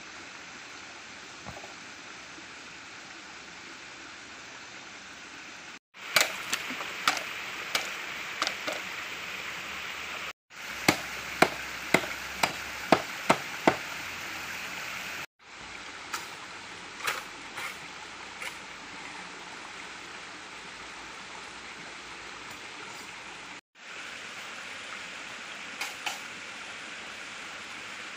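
Steady rush of a flowing stream, with runs of sharp knocks in the middle, about two a second at their quickest, from a blade chopping bamboo.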